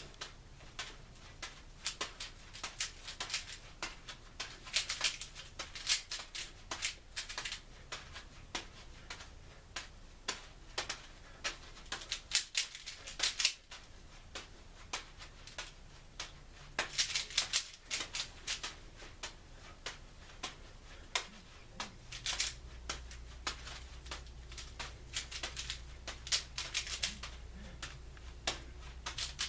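Rubik's cube being turned one-handed: quick runs of plastic clicks as the layers turn, with short pauses between them.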